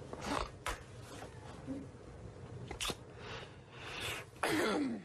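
A man's stifled giggling in short breathy bursts, with a louder laugh falling in pitch near the end.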